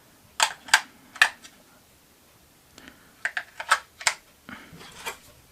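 Sharp plastic clicks as AA lithium batteries are pressed into the battery compartment of a Blink video doorbell: three separate clicks in the first second and a half, then a quicker cluster of clicks a little later, with soft handling rustle near the end.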